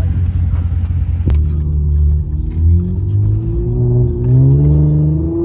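Car engine accelerating hard, its pitch climbing and dropping back several times as if shifting gears, after a sharp click about a second in.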